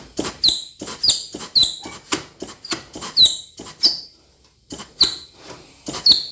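Shop air blow gun pulsed into the apply circuit of a 6R80 4-5-6 (E-clutch) drum in quick repeated bursts, each release giving a sharp click and often a short, high, falling squeak. It is an air check of a clutch drum that is cracked.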